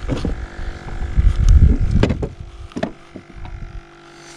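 Handling noise on a boat deck: low knocks and rumbling as gear is moved, with a few sharp clicks about two and three seconds in.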